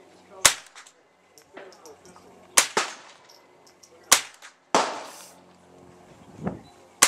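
Gunshots at an outdoor range: about six shots at uneven intervals, some short sharp cracks and some with a longer echoing tail.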